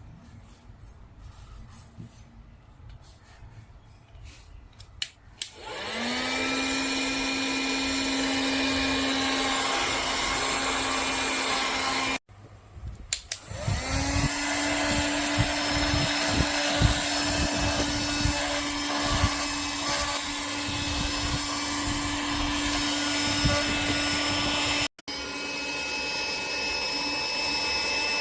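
OneTwoFit 9000Pa handheld USB vacuum cleaner switched on, its motor spinning up with a rising whine and then running steadily. It is switched on this way twice, with light handling clicks before the first start.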